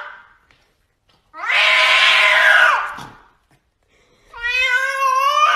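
Domestic cat giving two long, drawn-out yowling meows about a second and a half apart. The first falls away in pitch at its end; the second is a clearer call held at a steady pitch.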